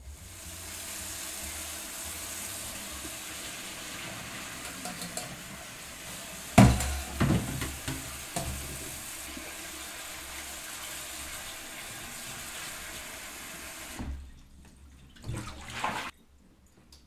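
Kitchen tap running steadily into a stainless mesh strainer of blanched bok choy sitting in a pot in a steel sink, with a loud metal clank about six and a half seconds in and a few lighter clatters after. The water stops near the end, then there are two short splashes as the pot is tipped and drained.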